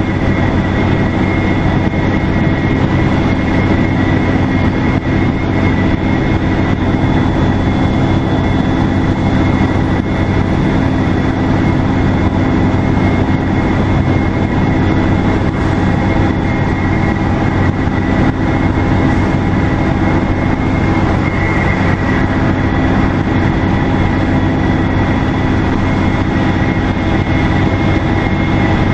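Detroit Diesel Series 50 diesel engine of a 2002 NABI 40LFW transit bus running steadily under way, with a loud, steady high-pitched turbocharger whistle over the engine drone.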